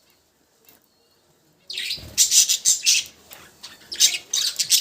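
Pet budgerigars chirping in quick, high, overlapping chirps, starting a little under two seconds in after a quiet opening.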